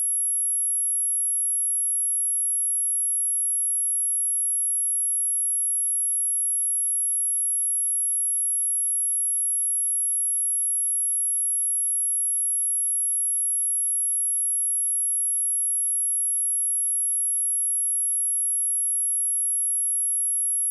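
A single high-pitched electronic sine-wave tone at 11204 Hz, held steady at constant loudness, a test tone used for checking speakers and for shaking water and dust out of them.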